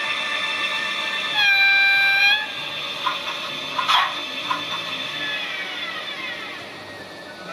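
Digital sound decoder in a PIKO BR111 model electric locomotive, playing its electric drive sound as a steady set of tones through the small speaker. A horn blast of about a second comes about a second and a half in, and a sharp click follows near the middle. Toward the end the drive sound glides down in pitch.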